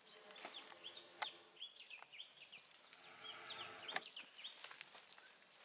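Forest ambience: a steady high insect drone with a bird's quick, repeated chirps, and a few sharp clicks and rustles from people working close by.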